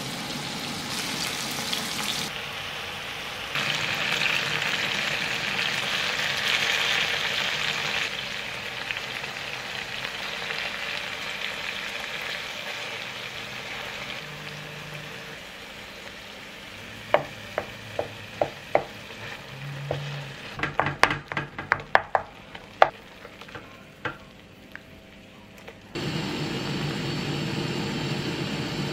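Hot oil sizzling around whole peeled tomatoes and garlic cloves frying in a stainless steel pan. About two-thirds of the way in comes a quick run of sharp taps. Near the end, after a cut, the crushed tomatoes simmer with a louder steady bubbling.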